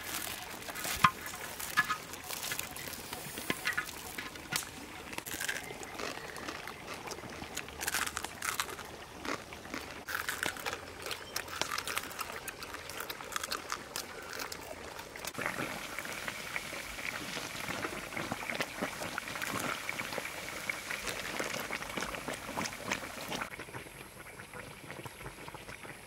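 Pork cooking in a pan of bubbling liquid, with scattered pops and crackles, settling into a steadier bubbling hiss about halfway through.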